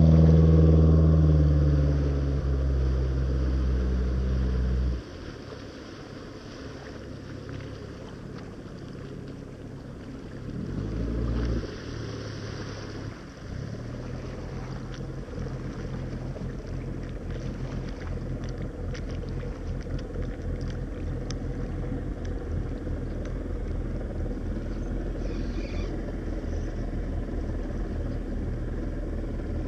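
Glastron 1700 runabout's engine throttling down: it runs loudly at first with its pitch falling, then cuts back suddenly to idle about five seconds in. The low idle then carries on steadily and grows slowly louder as the boat comes in slow and close.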